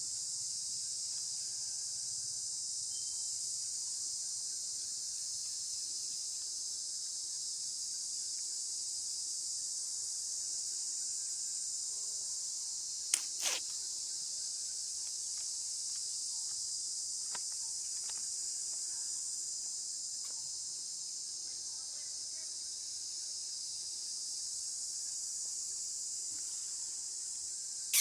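Steady, high-pitched chorus of insects in a tropical forest, with two sharp clicks about halfway through and another near the end.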